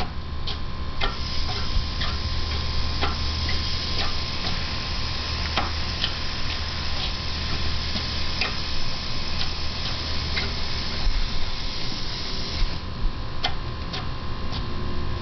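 Elmo toy lawn sprinkler spraying water with a steady hiss, broken by irregular sharp clicks; the upper part of the hiss thins out about three-quarters of the way through.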